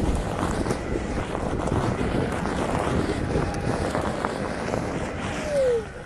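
Wind buffeting the microphone over the rumble of a Onewheel electric board rolling fast down a rough dirt trail. Near the end, a loud short whine falls in pitch.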